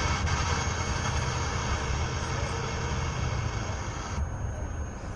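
Steady vehicle rumble with a hiss over it; the hiss falls away about four seconds in, leaving mainly the low rumble.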